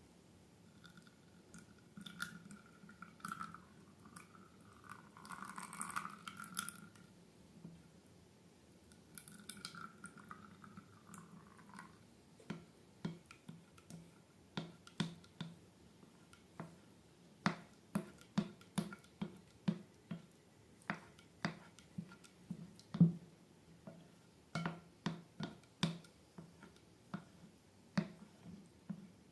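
Slime being worked by hand: soft wet squishing at first, then a steady run of sharp sticky clicks and pops, about two a second.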